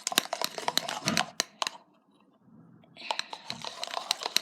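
Pen end stirring thick soap-and-shampoo slime in a small plastic container: a quick run of sticky, clicky squelches, stopping for about a second around two seconds in, then starting again.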